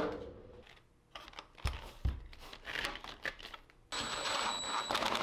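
A DeWalt cordless drill-driver winds down after running a hose-clamp screw, followed by a few light clicks and knocks. About four seconds in, a cordless driver runs steadily again, tightening the worm-drive hose clamp on a dust-separator fitting.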